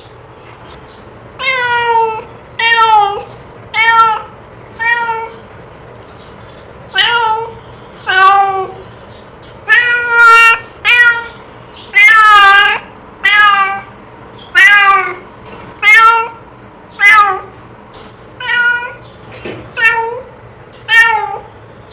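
Domestic cat meowing over and over, about seventeen separate meows roughly a second apart, each rising and falling in pitch, with a few shorter gaps and one longer drawn-out meow near the middle.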